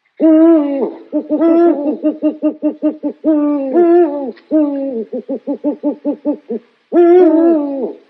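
An owl calling. Long hoots that drop in pitch at their ends alternate with quick runs of short, clipped hoots, about seven a second.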